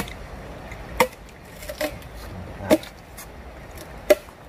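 About five sharp chopping strikes of a blade on wood, unevenly spaced about a second apart.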